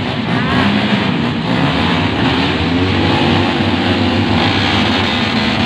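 Several small motorcycle engines running at once, with revving that rises and falls over a steady, crowded din.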